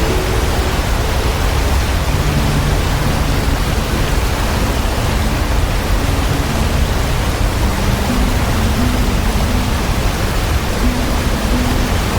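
Waterfall roaring steadily, a dense, unbroken rush of falling water. Faint low sustained musical notes shift in pitch underneath it.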